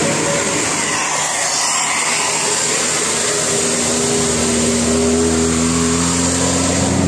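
A large vehicle, likely a bus, passing along the road: steady rushing road noise, with an engine hum coming in about halfway through and slowly rising in pitch.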